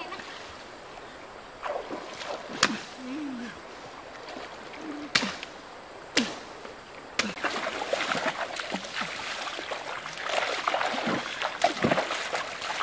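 Splashing of people wading through shallow river water, becoming dense and continuous from about seven seconds in, with three sharp knocks in the first half.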